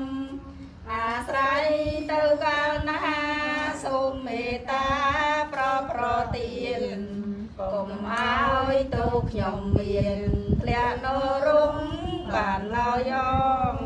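Theravada Buddhist chanting: several voices chanting in unison in long, drawn-out notes, a blessing that dedicates the merit of the food offering to departed ancestors.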